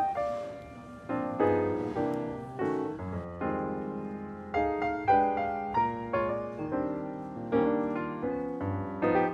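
Background piano music: chords and melody notes struck at an easy pace, each note fading after it is played.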